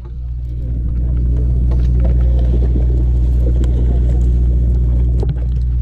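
Boat engine running steadily with a low drone. Faint voices are heard over it.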